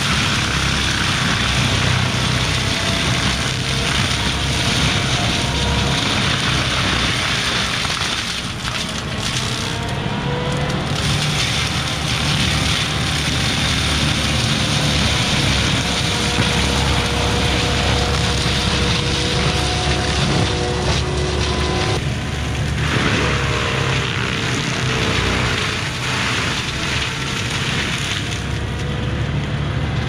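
Kubota SVL95 compact track loader's diesel engine running hard while its Promac HSM60 hydraulic drum mulcher spins and mulches brush. It is a loud, steady machine noise with a low rumble and a whine that drifts slowly up and down in pitch.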